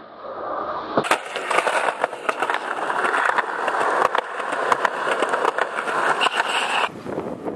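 Skateboard wheels rolling over a concrete path: a steady rough rolling noise dotted with small clicks and knocks, with a sharp clack about a second in. The rolling noise cuts off abruptly near the end.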